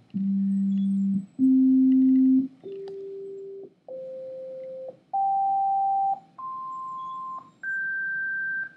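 A sequence of pure sine-wave test tones, about seven of them, each lasting about a second with short gaps between, stepping upward in pitch from low to high. The tones are played at the same decibel level but at different frequencies, a hearing demonstration of how the higher tones sound louder.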